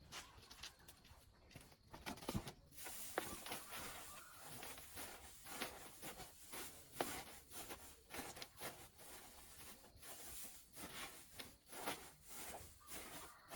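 Faint rustling and rubbing, broken by many small irregular clicks and scrapes, as something is handled close to the microphone.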